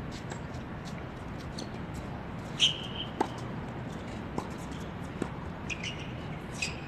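Steady outdoor background noise with a few faint clicks, and one short high chirp about two and a half seconds in.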